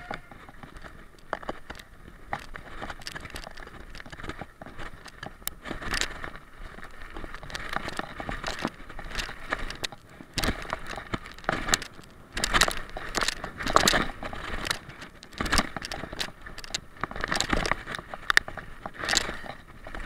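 Mountain bike descending a rough dirt and gravel trail: tyres running over the loose surface while the bike clatters and rattles irregularly over bumps, with sharp knocks, louder and busier in the second half.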